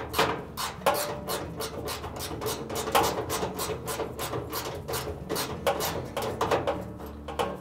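3/8-inch socket ratchet being worked back and forth to tighten a bolt on the washer's top cover: a quick run of rasping clicking strokes, about four a second.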